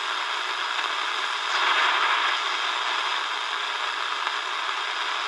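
Shortwave static hissing from a Tecsun DR-910 portable radio's speaker as it is tuned slowly between stations around 6.5 MHz, with no station coming through. The hiss swells briefly about a second and a half in.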